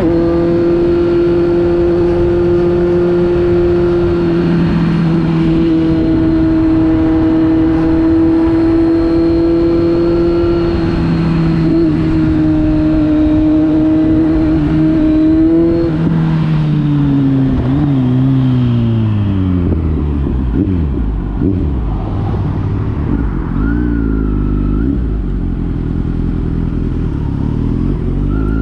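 Kawasaki Z900's inline-four engine through a knock-off Akrapovic exhaust, held at a steady high note for about sixteen seconds, then the revs fall away over a few seconds into a lower, rough-edged running note with a few short rev blips near the end.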